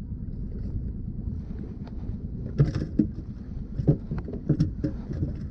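Boat motor running with a steady low rumble, with brief faint voices a few times.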